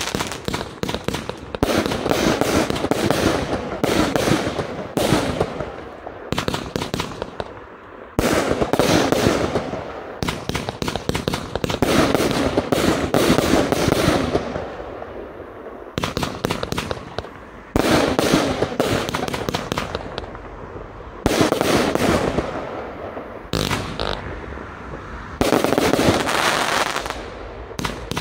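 Riakeo Colossus compound fireworks cake (25/30 mm calibre, 116 shots) firing shot after shot: a rapid run of launch thumps and aerial bursts. They come in loud waves every couple of seconds, with crackle trailing off between them.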